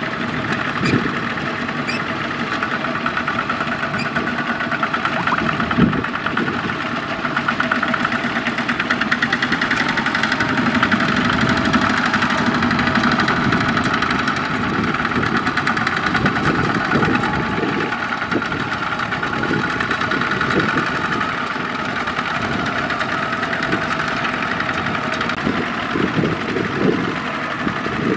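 Single-cylinder diesel engines of two-wheel walking tractors chugging steadily under load as they work through deep paddy mud, with a fast, even knock.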